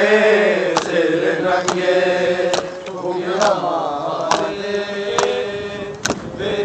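A crowd of men chanting a mourning noha (nauha) in unison, with sharp slaps about once a second in time with the chant, the beat of matam (chest-beating).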